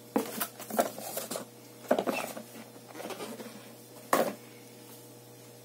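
Cardboard packaging box being handled: a run of irregular clicks, scrapes and rustles in the first couple of seconds, then one sharp knock about four seconds in.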